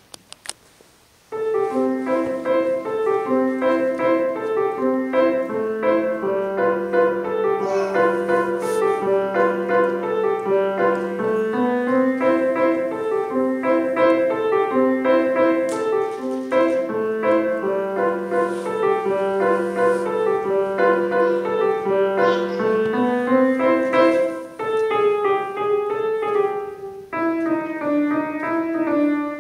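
Grand piano played solo: a simple tune over a repeating lower accompaniment pattern, beginning about a second in after a few soft clicks.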